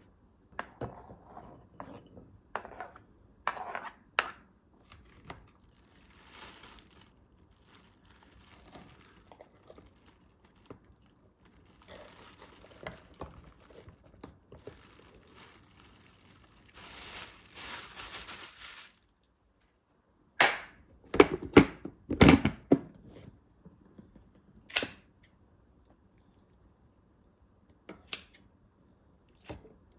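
Kitchen handling sounds during home cooking: scattered light clicks and the crinkling of packaging, a longer rustle about two-thirds of the way through, then a quick run of loud knocks and clatters.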